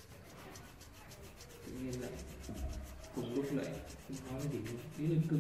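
Colored pencil shading on paper in rapid back-and-forth strokes, a quick scratchy rubbing. From about two seconds in, low pitched pulses come and go, loudest near the end.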